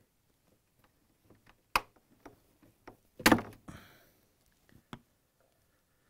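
Plastic wire-harness connector being prised at its locking tab with a flat-blade screwdriver and pulled apart: a few sharp clicks and knocks, the loudest about three seconds in.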